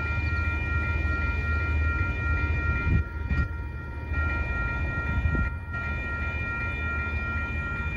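Railroad crossing bell ringing steadily at about three strokes a second, over the low rumble of an Amtrak passenger train passing through the crossing.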